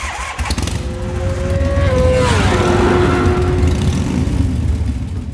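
A vehicle pass-by sound effect under a logo intro. A deep steady rumble carries an engine whine that rises a little, then drops in pitch about two seconds in as it goes by, and eases off near the end.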